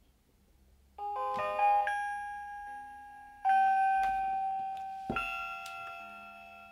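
Moono blood pressure monitor playing its electronic startup tune as it powers on: a quick run of chime notes about a second in, then single notes struck about every second and a half, each ringing and fading away.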